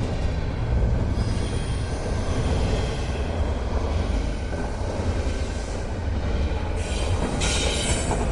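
A train rolling on the rails with a steady low rumble and a high-pitched wheel squeal; the squeal is strongest in the last second or so.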